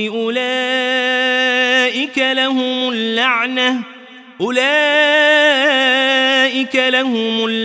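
A male reciter's voice chanting Quran verses in melodic tajwid style, drawing out long sustained notes. There is a short breath pause about four seconds in.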